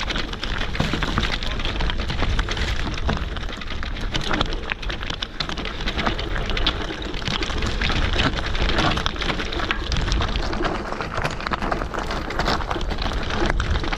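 Electric dirt bike riding over a rocky, gravelly trail: a steady crunching and rattling of tyres on loose stones, full of small clicks, over a low wind rumble on the camera microphone.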